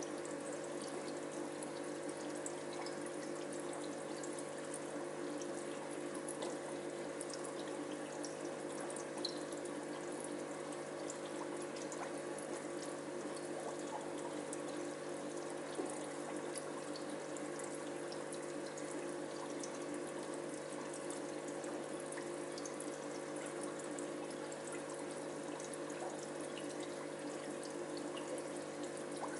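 Aquarium filter running: a steady flow of water with a low, even hum and scattered small ticks.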